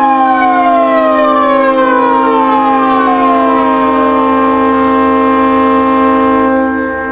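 Hockey goal horn blaring: a steady, many-toned horn chord holds while a siren within it winds down in pitch over the first three seconds or so. The upper tones drop away near the end as the horn dies off.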